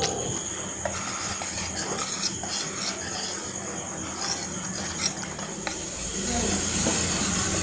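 Wire whisk beating pancake batter in a stainless steel bowl: continuous stirring and rubbing with many small clicks of the wires against the metal, as the flour and milk are mixed into a smooth batter.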